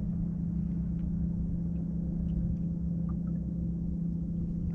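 Steady low mechanical hum, one low tone over a rumble, from equipment running on a fishing boat sitting on the water.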